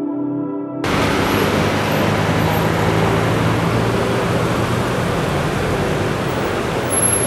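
Soft ambient music for under a second, then a sudden cut to a steady wash of street and traffic noise from cars moving through a town square.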